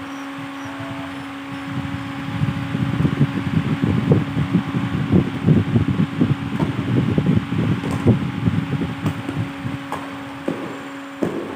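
A steady low hum under a rumbling rush of moving air that swells through the middle, with a few sharp racket hits on a shuttlecock during a badminton rally.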